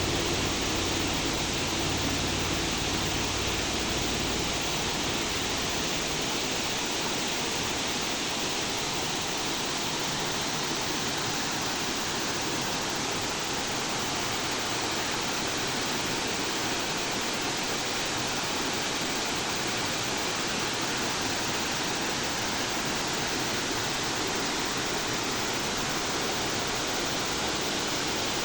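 Waterfall cascading with a steady, even rush of falling water. A low rumble underneath fades out in the first few seconds.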